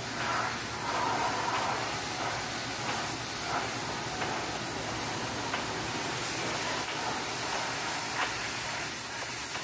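Pressure-washer wand spraying high-pressure water against the cab of a semi truck, a steady hiss.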